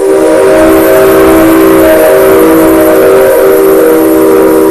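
C57 steam locomotive's whistle in one long blast: a steady chord of several low tones over a strong hiss, starting abruptly.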